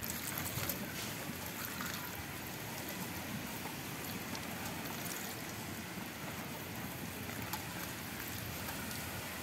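Water trickling and dripping steadily through a perforated steel colander as boiled noodles are rinsed in cold water and tossed by hand to wash off their starch.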